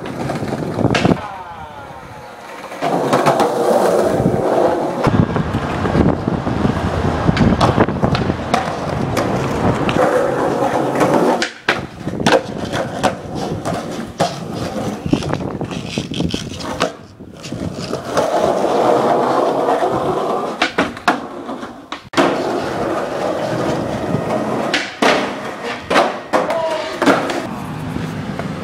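Skateboard wheels rolling on concrete, with sharp clacks of the board popping and landing several times.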